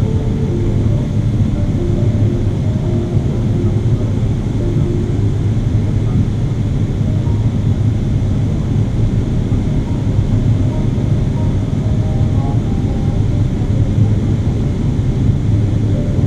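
Steady in-cabin roar of a Boeing 777-300ER in flight: its GE90 engines and the rushing airflow, heard from a window seat.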